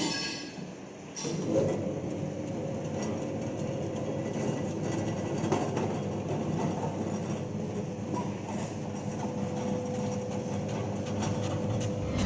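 A homemade taro-processing machine starts running about a second in and keeps up a steady mechanical rattle with a faint held whine.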